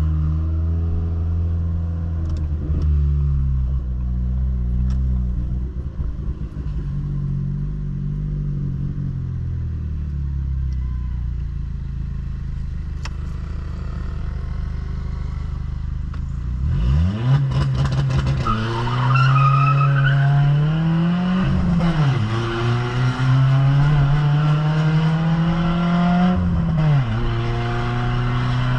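Ford New Fiesta engine droning through an exhaust with a diffuser ahead of the mufflers: it runs at low revs for about the first two thirds, then accelerates hard, the revs climbing and dropping sharply at two gear changes before settling.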